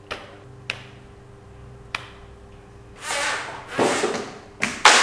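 A Panasonic Toughbook laptop knocked and tapped against a tiled floor: a few sharp, separate knocks over a steady low hum. About three seconds in, louder rough noise with several hard hits takes over, the hardest near the end.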